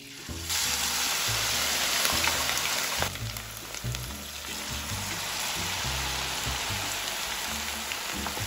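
Battered julienned vegetables hitting hot oil in a frying pan: a sudden loud sizzle about half a second in, then steady deep-frying bubbling, a little quieter after about three seconds.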